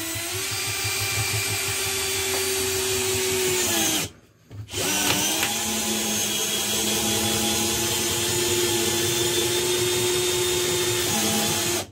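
Bosch GSB 120-LI 12 V cordless drill/driver driving an 11 cm screw into dry pine with no pilot hole. The motor runs at a steady pitch for about four seconds, stops briefly, then spins up again and runs steadily for about seven seconds more.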